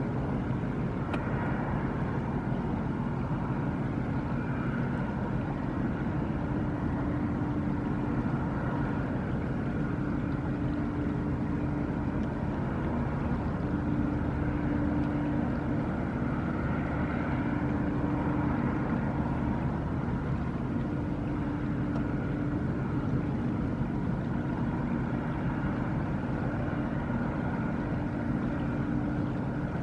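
Steady low machinery hum from the Ro-Ro car carrier, with a few faint held tones drifting in and out over a constant rumble.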